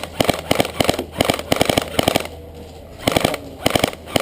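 Airsoft electric rifle firing on full auto in short rapid bursts, several in a row, then a pause about two seconds in, and two more short bursts near the end.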